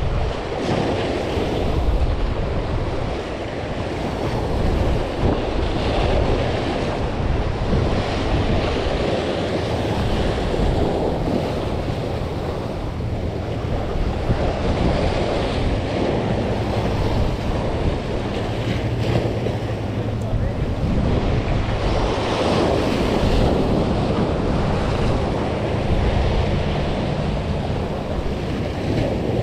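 Sea waves breaking and washing against jetty rocks, a steady rushing surf that swells and eases, with wind buffeting the microphone.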